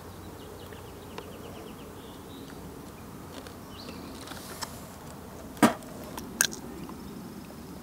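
Outdoor field ambience with insects buzzing, broken by a sharp click about five and a half seconds in and a smaller one just under a second later.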